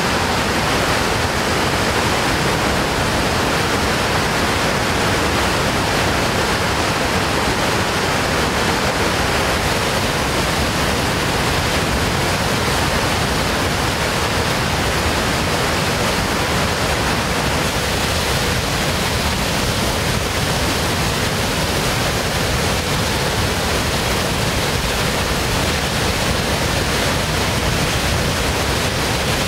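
Floodwater pouring through the open tainter gates of the Lake Conroe Dam spillway into churning whitewater below: a loud, steady rushing. The gates are making a flood release of more than 13,000 cubic feet per second.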